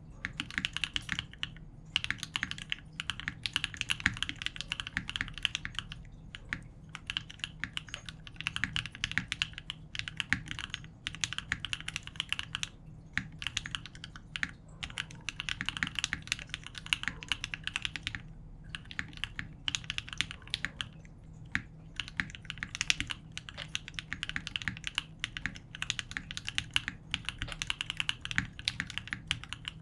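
Typing on a Dalco 959 Mini mechanical keyboard with lubed KTT Strawberry linear switches in an aluminium plate and CRP R4 keycaps: runs of rapid keystrokes lasting one to three seconds, broken by short pauses.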